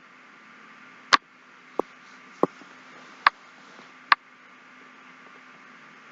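Five sharp, single clicks at uneven intervals of a computer mouse being clicked, over a faint steady hiss and hum.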